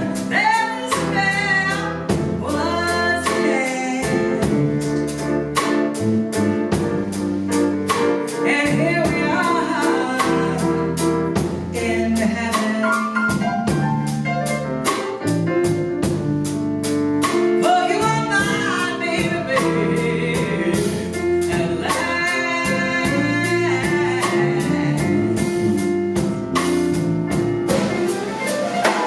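Live band performance: a woman sings over grand piano, electric bass guitar and drum kit, with a steady beat on the drums and cymbals.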